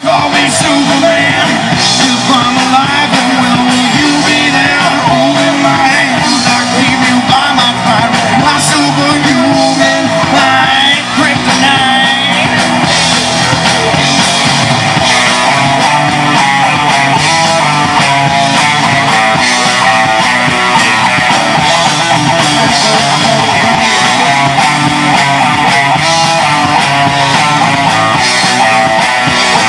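Live rock band playing loud and without a break: distorted electric guitar, electric bass and a Tama drum kit.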